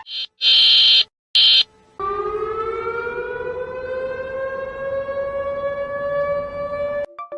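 Emergency alert alarm: two short, harsh buzzer blasts, then a siren tone that rises slowly in pitch for about five seconds and cuts off suddenly.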